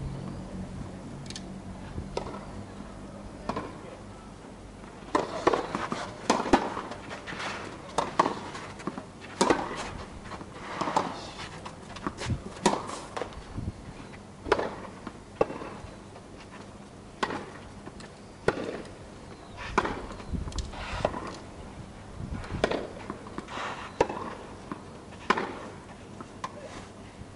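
Tennis balls struck by rackets and bouncing on the court during play: a run of sharp pops and thuds, irregularly spaced about a second apart, starting about five seconds in.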